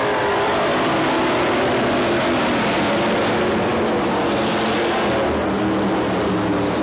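A field of modified stock car engines running together at racing speed on a dirt oval. Several engines overlap in a steady, loud drone, their pitches drifting slightly up and down as the cars go through the turns.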